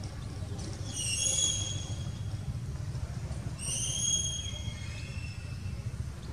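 Two high, clear whistled animal calls, a short one about a second in and a longer one a few seconds later, over a steady low rumble.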